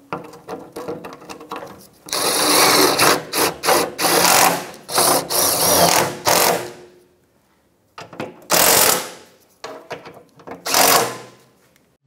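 Cordless power driver with a socket extension running the engine skid plate's bolts in. It makes one long run of a few seconds and then two short bursts, snugging the bolts up but not tightening them.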